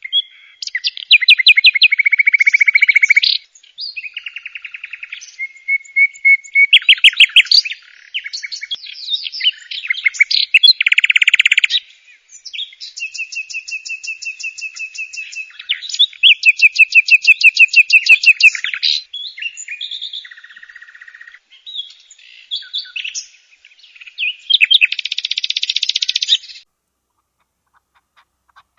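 A songbird singing a long series of varied, high-pitched phrases built from rapid trills and quickly repeated notes, with short pauses between phrases. The song stops shortly before the end.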